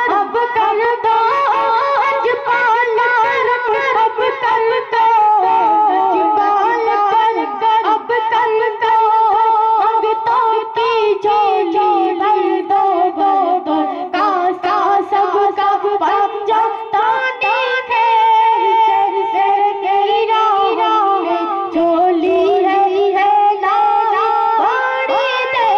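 A boy singing a devotional Urdu song in praise of the saints into a microphone: one high voice carrying a wavering, richly ornamented melody with long held notes.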